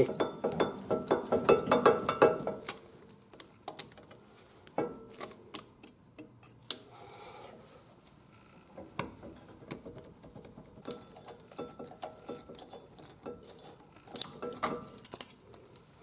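Small metallic clicks and ticks from hand tools working the cotter pin and castellated nut lock off a front axle hub nut. There is a fast run of clicks over the first two seconds or so, then scattered single clicks.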